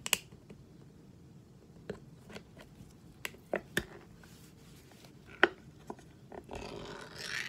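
Light clicks and taps of a small metal food can and a plastic fork being handled, then, about six and a half seconds in, the can's pull-tab lid being peeled open with a tearing sound lasting about a second.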